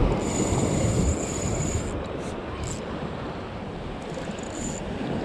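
Wind and surf noise on the microphone, with the high-pitched whirr of a Shimano Stradic spinning reel under load from a fish on the bent rod: one spell of about two seconds near the start and a shorter one about four seconds in.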